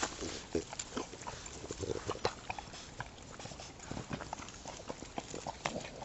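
Footsteps crunching on a snow-dusted path, with irregular short clicks and scuffs. Animal noises come from a French bulldog close by.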